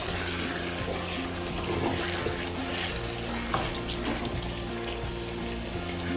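A steady crackly hiss of cooking noise, with quiet background music under it.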